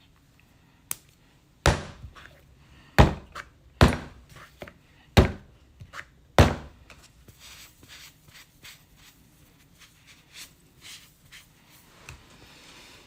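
A series of sharp thunks on a work surface, about six in the first six and a half seconds, followed by lighter scattered taps and clicks.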